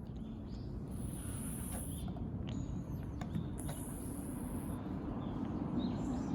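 Outdoor ambience: a steady low rumble of distant traffic, broken by two high-pitched buzzes about a second long each, with a few faint bird chirps and ticks between them.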